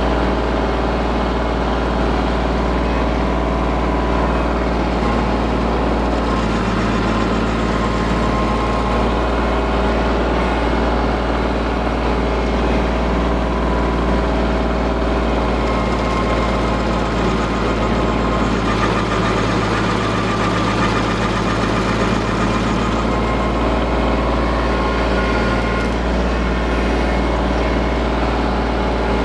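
Compact tractor engine running steadily, driving a PTO stump grinder whose 24-inch cutter flywheel is grinding a small cedar stump into chips.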